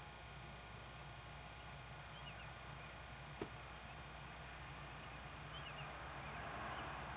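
A distant CN train's diesel locomotive approaching, a faint rumble that grows louder near the end, over quiet outdoor background noise. A single sharp click about three and a half seconds in, and a few faint high chirps.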